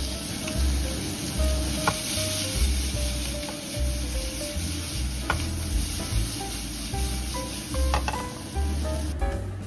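Sliced pork and onion sizzling in a hot frying pan as they are stir-fried, with a few sharp clicks of tongs against the pan. The sizzling cuts off shortly before the end.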